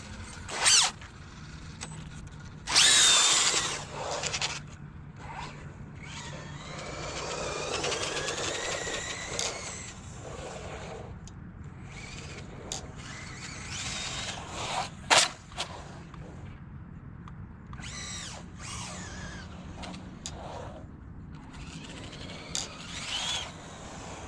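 Traxxas Rustler VXL stadium truck's electric motor whining, rising and falling in pitch as the truck speeds up and slows down. Several short loud bursts break in, the loudest about three seconds in.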